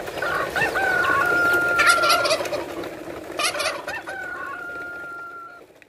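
A rooster crowing twice, each crow ending in a long held note, with two brief hissy noises between the crows.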